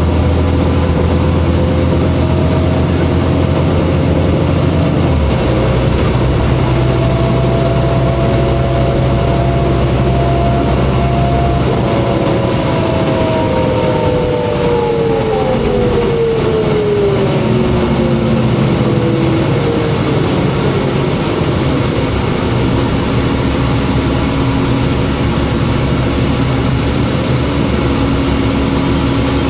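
Interior sound of a 2003 New Flyer D40LF city bus under way: its Cummins ISL diesel and Voith D864.3E automatic transmission run with a steady hum and whine. A little before halfway through, the drivetrain whine glides down in pitch as the bus slows, then settles to a lower, steady drone.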